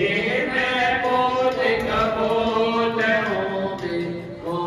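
Hindu devotional chanting: a voice singing a hymn in long held notes that slide up and down.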